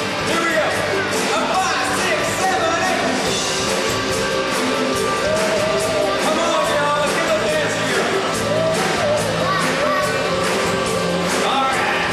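Live rock song from a stage band over a theatre sound system, with a voice singing over a steady drum beat.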